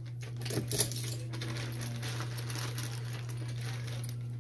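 A cluster of light clicks and taps in the first second or so, like small objects being handled, over a steady low hum.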